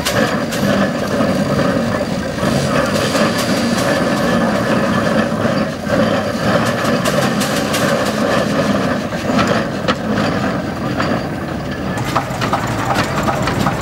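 Steam traction engines running as they drive, a steady mechanical clatter with many quick knocks. Near the end the sound changes as a second, larger engine takes over.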